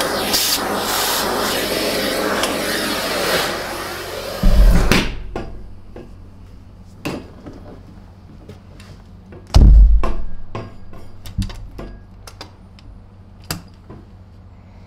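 Central vacuum hose running with a steady rush of air, which cuts off suddenly about five seconds in. After that, parts of the disassembled vacuum are handled: two heavy thumps and scattered clicks and knocks.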